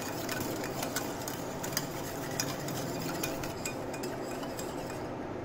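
Wire balloon whisk beating a thin milk, sugar and ghee mixture in a glass bowl: a steady swish of liquid with quick, irregular clicks of the wires against the glass. The clicking dies away shortly before the end.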